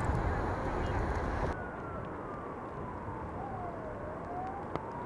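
An emergency-vehicle siren wailing slowly over a steady outdoor hum: its pitch falls for about two and a half seconds, then rises again. Before it, a louder low rumbling noise cuts off abruptly about a second and a half in.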